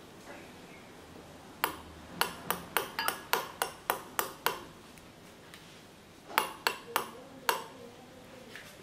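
Metal spoon clinking against a glass tumbler as diced strawberries are spooned in: about ten quick clinks, a pause, then four or five more.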